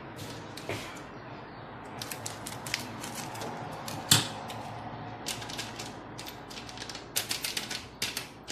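Packet of flan powder crinkling and clicking as it is opened and shaken out over a bowl of milk, in quick runs of small clicks, with one sharp click about four seconds in.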